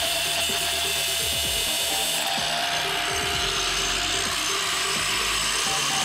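Angle grinder running with its abrasive disc grinding against the steel of a folding knife clamped in a vise, cutting at the pins, under background music.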